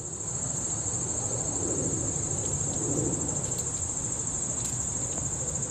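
Insect chorus in late-summer daytime, a steady high-pitched trill that runs on unbroken.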